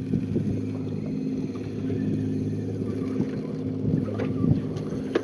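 Boat motor running steadily at a constant pitch, with a few light knocks on board.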